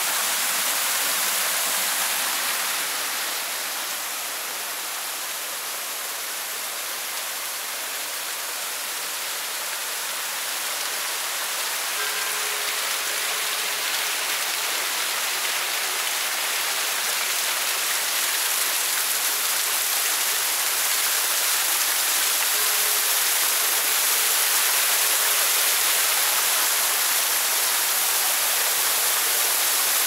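Artificial rock waterfall splashing into a pond: a steady rush of falling water that dips a little a few seconds in and grows louder toward the end.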